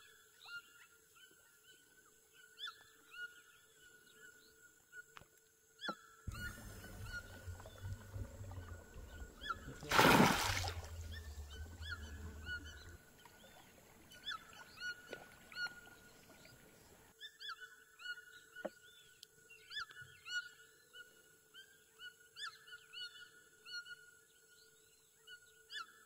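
Rainforest wildlife chorus: many short, quick chirping calls over a steady high drone. A low rumble runs from about six to thirteen seconds in, and a loud brief rush of noise comes about ten seconds in.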